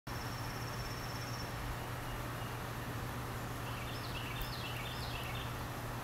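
Songbirds singing outdoors over a steady background hiss and a low hum. A rapid high trill is held for about a second and a half near the start. About halfway through comes a quick run of high notes that jump up and down in pitch.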